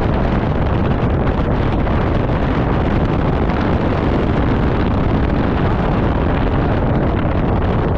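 Steady wind rush buffeting an action camera's microphone, mixed with the running of a scooter riding along the road.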